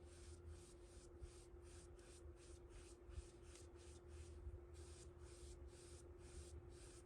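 Faint quick back-and-forth rubbing strokes, about three a second, on a plastic model kit part being hand-finished. A steady low electrical hum runs underneath.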